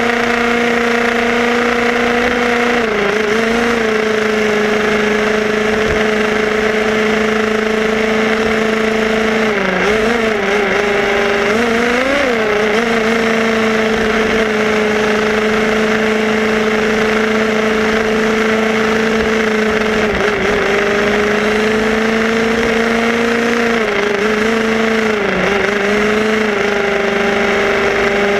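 Tamiya radio-controlled buggy running on the road: its electric motor and gears whine at a steady pitch, dipping briefly a few times as it slows and picks up again, over a constant hiss of tyre and road noise.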